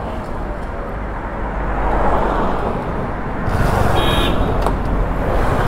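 Motorcycle engine running with road and traffic noise while riding through town traffic, a car passing close about four seconds in. A brief high-pitched tone sounds at about that moment.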